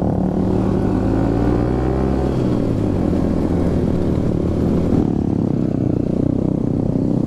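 Motorcycle engine running steadily while riding, with a change in the engine note about two and a half seconds in.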